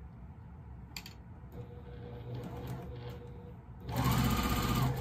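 Electric sewing machine starting to stitch about four seconds in and running steadily at speed, after a faint click.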